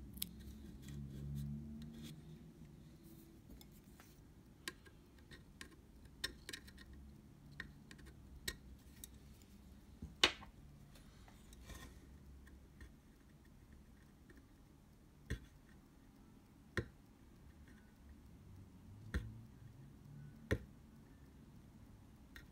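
Scattered small clicks and taps of hand work on a disassembled Leica II D camera, about a dozen spread irregularly, the sharpest about ten seconds in, as a cardboard strip is fitted to line up the shutter curtains.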